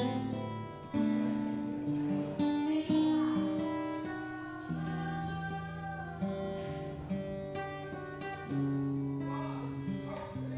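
Gibson J-45 slope-shouldered dreadnought acoustic guitar played solo: a slow run of chords, each struck sharply and left to ring and fade.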